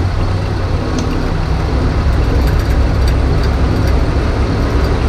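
Fuel-injected 427 big-block V8 of a 1969 Chevrolet C60 dump truck running steadily with a low, even drone as the truck rolls along a dirt track.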